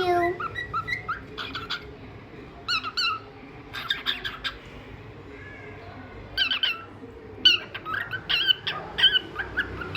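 Cockatiel chirping and whistling in quick clusters of short, sliding notes, with a pause about halfway through.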